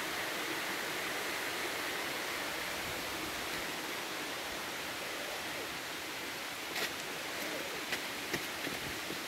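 Steady rush of a mountain stream cascading over granite rock. A few light knocks come in near the end.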